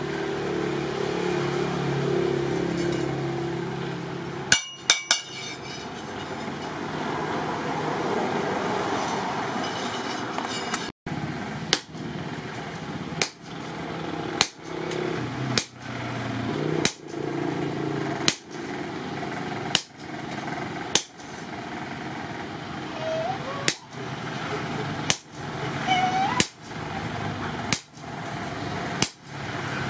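Hammer blows on a red-hot steel blade on a post anvil, struck through a handled top tool held on the blade. A sharp metallic strike with a brief ring comes about every second and a half through the second half.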